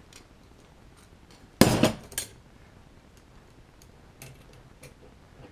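Metal lock parts clattering as they are handled and set down during disassembly: one loud clatter of several sharp clinks about a second and a half in, with a few faint clicks around it.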